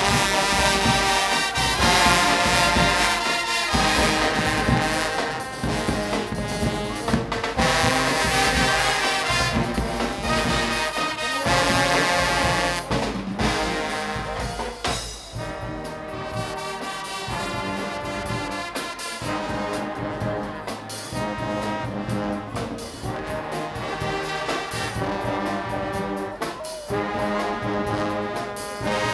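A Guggenmusik band plays loudly: blaring trumpets and trombones over a heavy drum beat. The playing eases somewhat about halfway through and swells again near the end.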